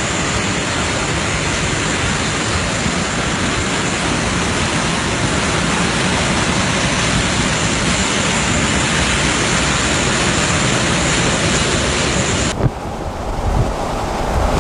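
Steady rush of splashing water and wind as a vehicle ploughs through deep flood water in hurricane conditions. About 12.5 s in it cuts abruptly to a gusty rumble of wind on the microphone.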